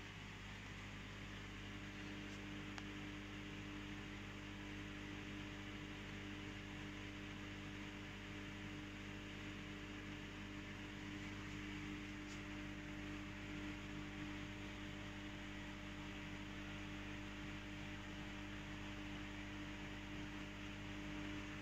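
Aquarium filters and aeration equipment humming steadily, several fixed hum tones over a faint steady hiss.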